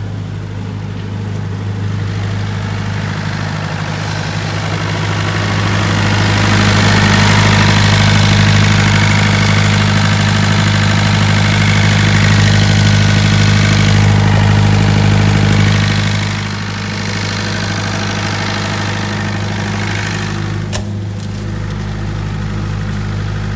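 An 82 kVA diesel generator set running at a steady speed with an even hum. It gets louder for about ten seconds in the middle, while the engine is seen up close inside its canopy, then drops back. A single sharp click comes near the end.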